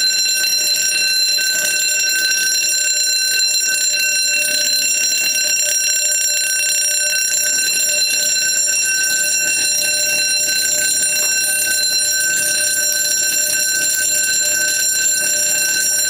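Edwards Durabell fire alarm bell ringing continuously and loudly, set off by a pulled manual pull station on a single-zone Edwards 1526 panel that sounds its bell on continuous (uncoded) signalling.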